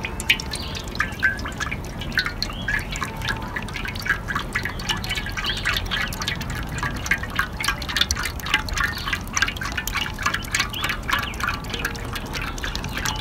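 Vegetable oil pouring in a steady stream from a plastic jerrycan into a wide aluminium pan, with a dense, irregular run of glugs and splashes.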